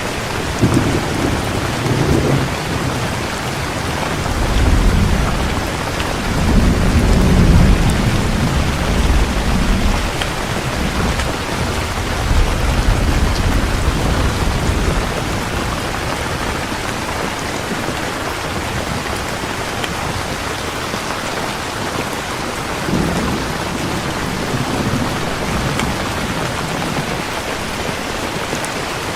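Heavy rain falling steadily with rolling thunder: a long rumble in the first half, loudest around seven seconds in, and a shorter, weaker rumble a little over twenty seconds in.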